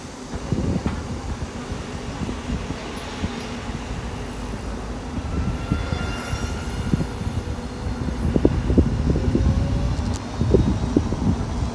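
Wind and road rumble on the microphone of a moving e-bike: a steady low rush with irregular gusts, stronger in the second half.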